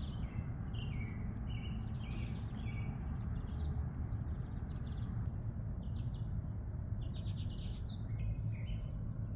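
Small songbirds chirping and singing in many short, high notes and quick trills, over a steady low rumble.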